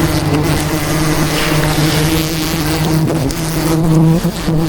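Swarm of wild honeybees buzzing loudly and close, a continuous drone with a steady pitch.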